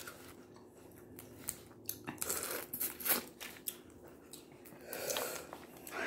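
Boiled crawfish being peeled by hand and eaten close to the microphone: scattered cracks and crackles of the shells breaking, with chewing.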